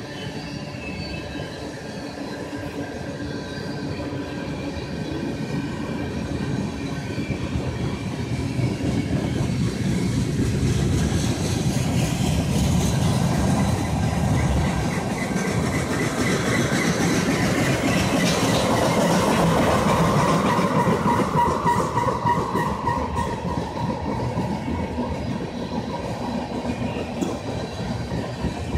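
Freight train of tank cars rolling past: steel wheels rumbling and clacking on the rails in a steady stream, growing louder to a peak about two-thirds of the way through. A thin ringing wheel squeal sounds over the rumble in the middle stretch.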